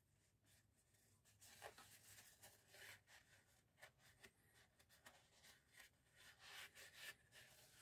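Faint scratchy rubbing with light clicks: a cap on a Mercedes OM646 diesel engine being twisted off by hand.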